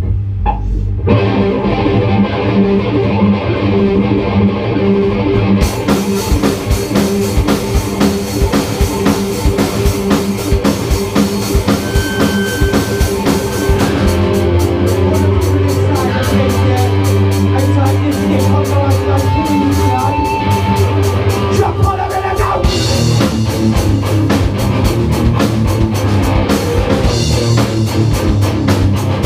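A live metal band playing an instrumental passage on electric guitars and a drum kit. The guitars start alone with low held notes, the drums and cymbals come in about six seconds in, and a fast, even drum beat drives the second half.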